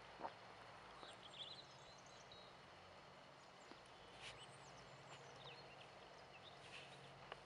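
Near silence: faint outdoor hiss with small birds chirping briefly now and then, and a few soft single knocks.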